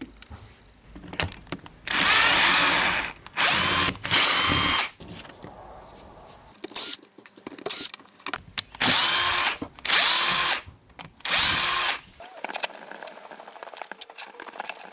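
Cordless electric screwdriver running in six short bursts of about a second each, its motor whine rising as it spins up, backing the screws out of the impact wrench's housing. Light clicks and handling noises come between the bursts.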